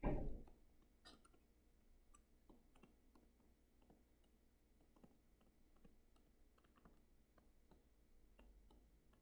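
Faint, irregular taps and clicks of a stylus on a tablet screen during handwriting, with a short louder thump at the very start.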